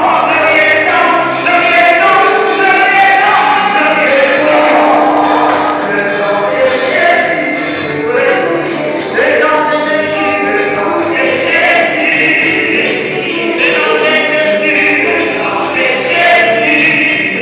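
Gospel worship song: several voices singing together over instrumental backing with a steady beat.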